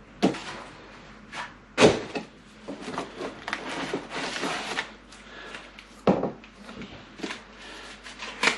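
Moulded cardboard packaging inserts being handled and lifted out of a cardboard box: about four sharp knocks, the loudest about two seconds in, with scraping and rustling of cardboard between.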